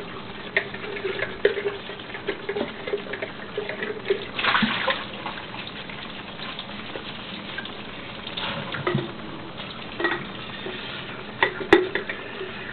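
Water running through a Dishmaster, a faucet-fed dish brush, while a dish is scrubbed in the sink. Scattered clinks and knocks sound throughout, with louder splashing rushes about four and a half and nine seconds in.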